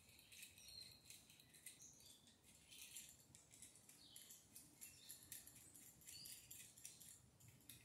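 Near silence with faint, scattered small clicks and scrapes of a screwdriver turning down the unused terminal screws on an electrical outlet.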